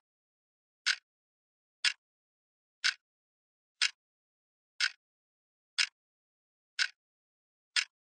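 Sharp ticks, evenly spaced about once a second, eight in all, like a clock ticking, with nothing else heard between them.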